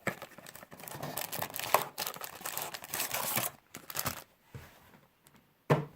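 Trading-card box packaging being opened and handled: irregular crinkling and tearing for about three seconds, then quiet, then one sharp knock near the end.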